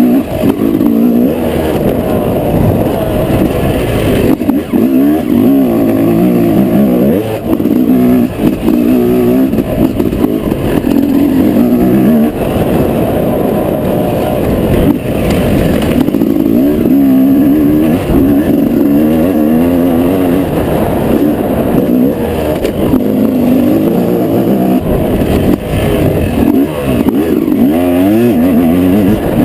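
Yamaha YZ250 two-stroke single-cylinder motocross engine being ridden hard, revving up and dropping back over and over, its pitch rising and falling every few seconds.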